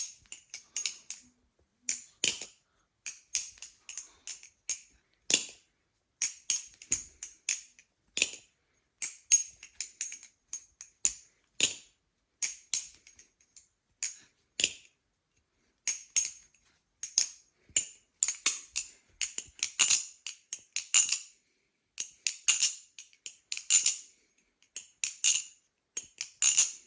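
An Impulse balisong (butterfly knife), freshly oiled, being flipped: irregular runs of sharp metallic clicks and clacks as the blade and handles swing and knock together. The clicks are extremely high-pitched, with a ringing tone.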